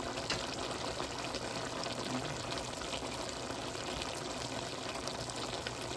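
Pork igado stewing in soy sauce, vinegar and water, boiling steadily in the pan, with a constant bubbling and crackle.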